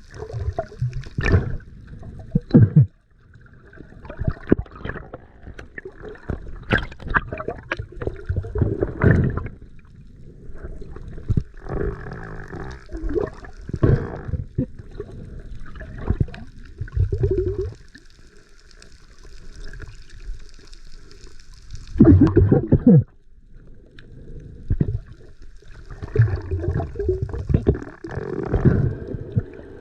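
Water sloshing and gurgling around the diver's camera, in irregular surges with short knocks and a loud rush of water a little past the middle.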